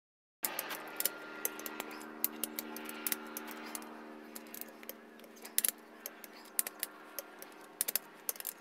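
Torque wrench ratcheting on crankshaft main bearing cap bolts: sharp, irregular metal clicks. Under the clicks is a steady hum, which starts about half a second in.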